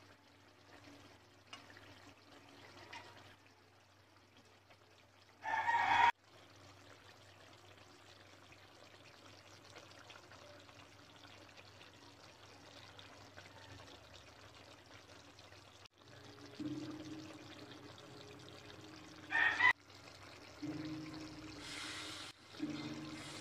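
Pork and coconut milk simmering in a wok, a faint steady bubbling. Twice, about six seconds in and again near twenty seconds, a short, loud, high-pitched cry cuts in over it.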